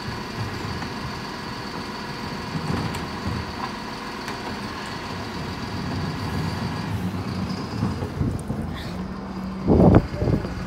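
Mercedes-Benz Econic bin lorry running steadily with a high whine. A loud thump comes near the end.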